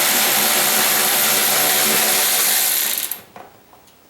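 A 12-volt cordless 3/8-inch electric ratchet wrench running steadily, then stopping suddenly about three seconds in; a few faint clicks follow.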